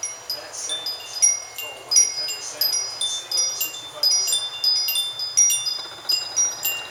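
Metal wind chimes ringing, struck irregularly a few times a second, with many high notes of several pitches overlapping and ringing on.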